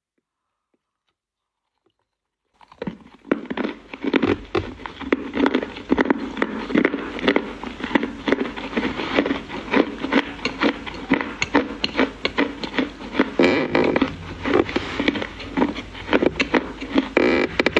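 Dry Chinese clay crunching and crumbling in a dense run of sharp crackles, starting about two and a half seconds in after near silence.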